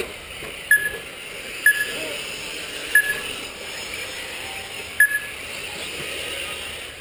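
Four short electronic beeps at uneven intervals, typical of a lap-timing system sounding as RC cars cross the timing line, over a steady hiss of race background noise.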